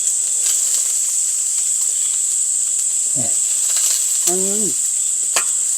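Steady high-pitched insect chorus, like crickets, with two short murmured voice sounds about three and four seconds in and a small click near the end.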